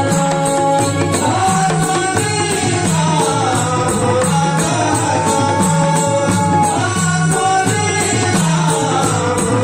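Dholki and mridang drumming in a steady repeating pattern, with jingling percussion and a long held sung melody over it.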